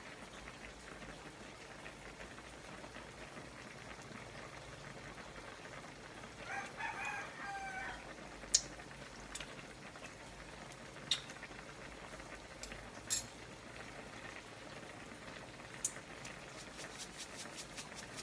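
A rooster crows once, faintly, about six seconds in, over a steady low hiss from a pan of sauce simmering on a gas stove. A few sharp clicks follow, and near the end comes a fast, even crackle of bubbling.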